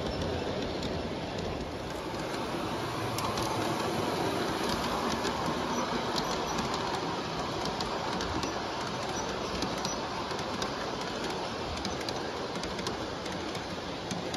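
G-scale LGB Amtrak model passenger train rolling along the track, a steady rolling rumble of the cars' wheels with scattered sharp clicks, a little louder as the cars pass close by in the middle.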